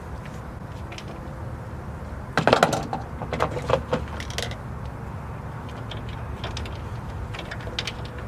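A quick cluster of light clicks and rattles from small hard parts being handled, about two and a half to four and a half seconds in, with a few fainter clicks later, over a steady low rumble.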